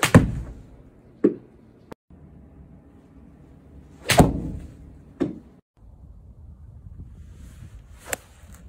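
Golf club striking the ball in an indoor simulator bay, three separate shots with sharp cracks near the start, about four seconds in and near the end. The first two are each followed about a second later by a weaker knock.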